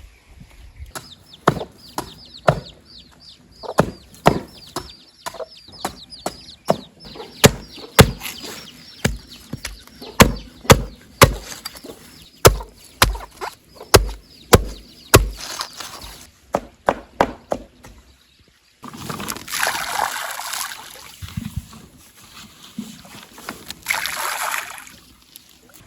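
A long series of sharp knocks, one or two a second, followed by two swells of rushing noise near the end.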